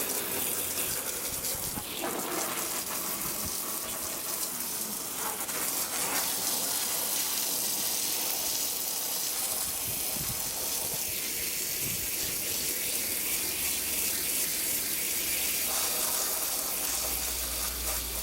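Steady hiss of water spraying onto a soiled car floor carpet to rinse it, the spray shifting in tone as it moves over the carpet.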